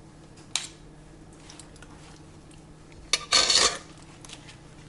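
A metal spoon against an enamel bowl: one sharp tap about half a second in, then a short, louder clatter of the spoon against the bowl about three seconds in.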